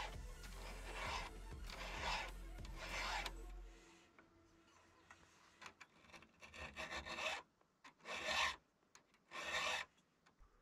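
Hand file rasping across the teeth of a chainsaw chain on a milling bar, sharpening the chain: about one stroke a second at first, then a short pause, and a few more strokes near the end, the last two the loudest.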